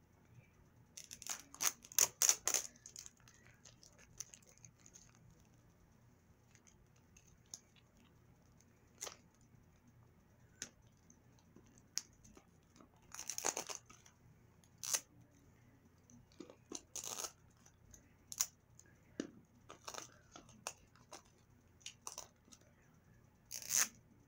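Plastic wrapping on a LOL Surprise Pets ball being picked at and torn by hand. It comes as scattered short rips and crinkles with long quiet gaps between, a layer that is hard to open.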